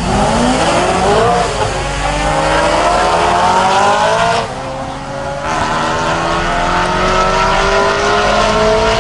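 Two cars accelerating hard down a drag strip, their engines climbing in pitch through the gears. There are upshifts about a second in and again around halfway through.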